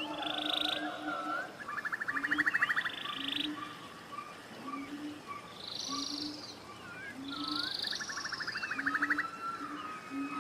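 Forest ambience with several birds calling at once: fast buzzy trills, higher sweeping notes and short chirps. Under them a low, short note repeats about once a second.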